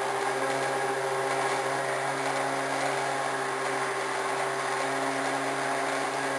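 Countertop blender motor running steadily at a constant speed, blending a boiled squash mixture: an even motor hum under a loud whirring hiss.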